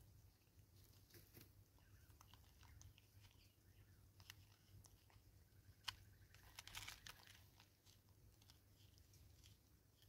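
Faint crunching and crackling as a vervet monkey eats birdseed and handles a plastic bottle feeder. A sharp click comes about six seconds in, and a short crackle follows it.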